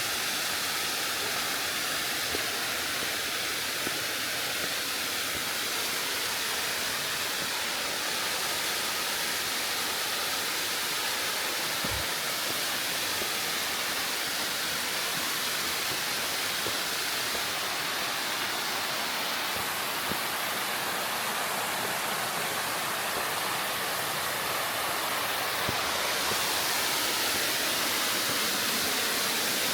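Mountain stream rushing steadily over a bedrock slab in a series of small waterfalls.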